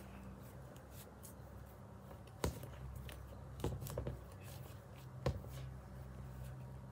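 A few sharp clicks or taps, about two and a half, three and a half to four, and five seconds in, over a faint steady low rumble.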